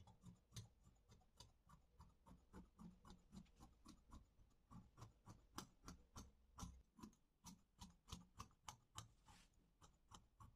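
Faint snipping of large tailoring scissors cutting through cotton-like fabric along a marked line: a run of short clicks, about three a second.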